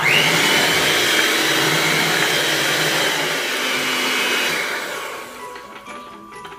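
Black+Decker electric hand mixer running, its wire beaters whisking thin cassava batter in a stainless steel pot. The motor whines up at the start, runs steadily, then dies away about five seconds in.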